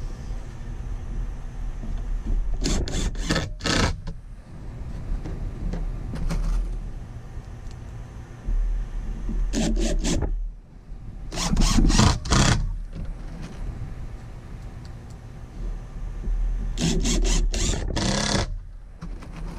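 Cordless drill driving drywall screws into plywood, running in four short spurts of a second or so each.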